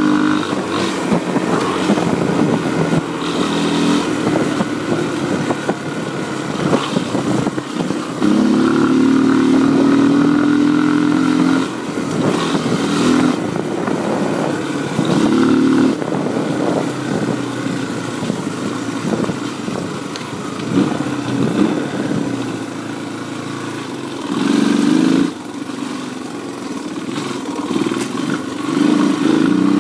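Honda XR200 dirt bike's air-cooled single-cylinder four-stroke engine running while ridden, the throttle opening and closing. There are several louder surges of acceleration a few seconds long, and it revs up again near the end.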